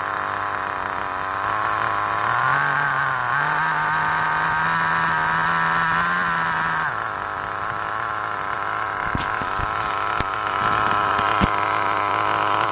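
Nitro RC car's small two-stroke glow engine idling. About two seconds in it speeds up and holds a higher, steady note for about four seconds, then drops back to idle. A few sharp clicks come near the end.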